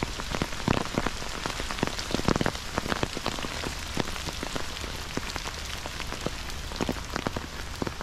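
Steady rain, with many close, irregular drops tapping on an umbrella held overhead.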